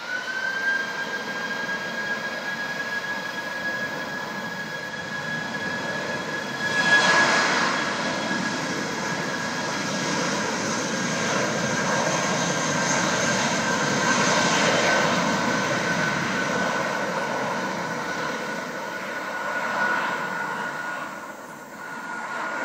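Airbus A320's two jet engines spooling up to takeoff thrust, a high whine rising in pitch and then holding steady. A louder jet rush builds about seven seconds in as the airliner accelerates down the runway, then eases near the end as it moves away.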